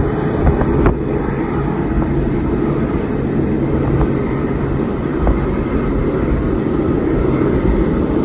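Boeing 747 freighter's four jet engines at takeoff thrust, a loud steady roar during the takeoff roll. Jet blast gusts on the microphone.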